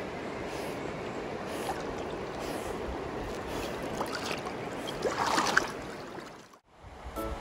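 River water lapping and splashing around a golden retriever as it swims and wades with a toy in its mouth, with a louder splash about five seconds in. The sound cuts out just before the end, and background music starts.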